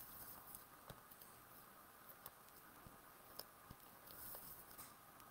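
Near silence with a few faint, scattered clicks and taps from a tape-runner adhesive dispenser being run along a cardstock panel.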